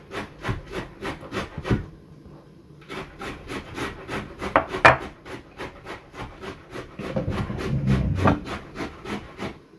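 Hands working a metal microphone body against a wooden desk: rapid, regular rubbing and scraping strokes, about four or five a second, pausing briefly about two seconds in, with a sharper knock near the middle.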